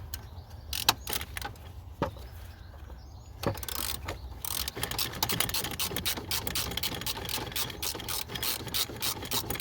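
Hand socket ratchet clicking as a 10mm bolt is worked: a few single clicks at first, then a quick continuous run of clicks from about halfway.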